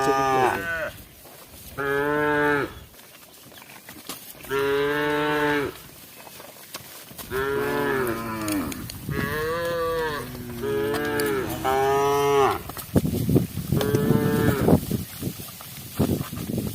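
Cows mooing repeatedly: about eight long, pitched calls of roughly a second each, some bending in pitch. The last calls near the end are rougher and breathier.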